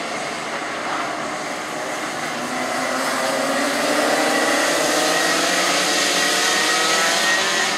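A pack of two-stroke racing kart engines running at high revs, several pitches climbing together as the karts accelerate. The sound grows louder a few seconds in as the pack comes closer.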